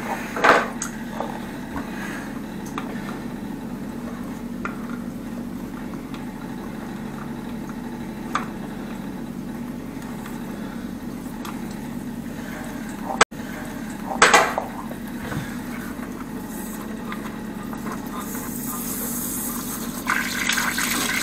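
Water running steadily through the plumbing, with a few sharp metal clicks and clanks at an old angle valve, the loudest about 14 seconds in. Near the end a hiss of water rises as the valve's supply-hose fitting is worked loose.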